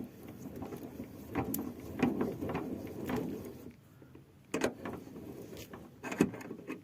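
Car scissor jack being cranked up with the wheel spanner: irregular metal clicks and scraping, with a short pause partway through and a few sharp clicks after it.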